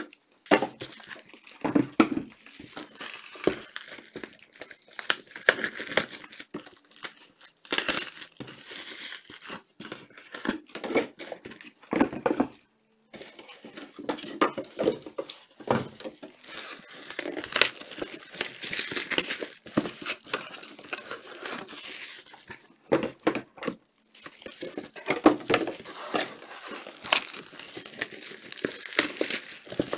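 Trading-card pack wrappers crinkling and tearing as Panini Chronicles soccer packs are opened, in irregular bursts of rustling with a brief pause a little before halfway.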